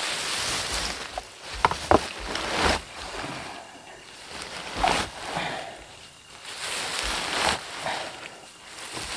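Heap of freshly cut weeds and dry grass stems rustling as it is handled, in several swishing bursts, with a couple of sharp snaps of stems about two seconds in.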